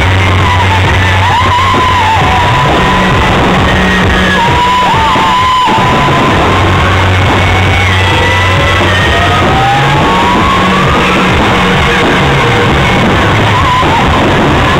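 Loud rock music playing over a large sound system, with steady held bass notes, and two long rising whistles past the middle.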